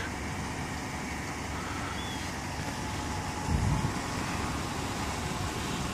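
Steady running noise of the Chevy Tahoe's engine at idle. A short low rumble of wind on the microphone comes about three and a half seconds in.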